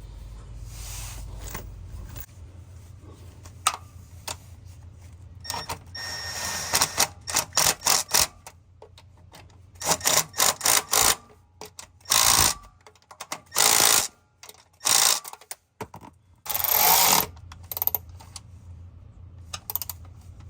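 Hand ratchet wrench clicking in short bursts of fast clicks, repeated many times as bolts are run in while a car's starter motor is reinstalled. A steady low hum sits underneath.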